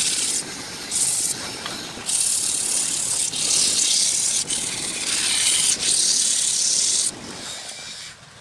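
Sandpaper rubbing against a workpiece turning on a woodturning lathe: a harsh scratchy sound in strokes of about a second with short breaks, dropping away about seven seconds in.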